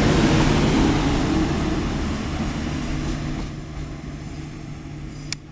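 InterCity 125 (HST) diesel train passing at speed, the rush and rumble of its coaches on the rails fading away over the first few seconds. A steady low diesel hum from a second train coming in carries on underneath, with one sharp click near the end.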